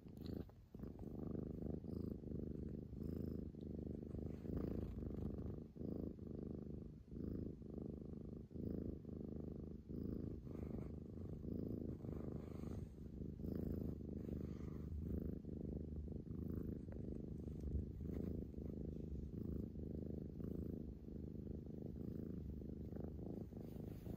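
Scottish Fold cat purring close up, a continuous low rumble that swells and dips about once a second.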